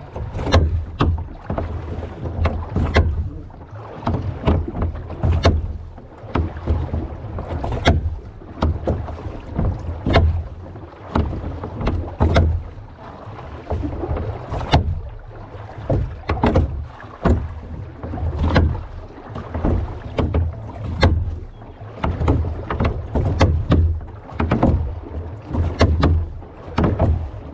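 A rowboat being rowed with a pair of wooden oars: with each stroke, about one every two and a half seconds, the oars knock and clack in their metal oarlocks and the blades splash, over a low thud from the hull.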